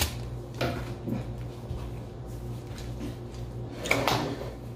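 Paper food wrappers rustling and a few light knocks at a kitchen table, with a louder rustle near the end, over a steady low hum.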